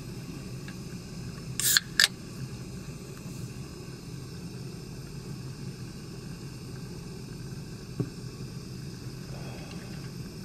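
An aluminium Heineken beer can's pull-tab being snapped open, heard as a short hiss and a sharp crack close together about two seconds in, over a steady low rumble. A single light knock comes later on.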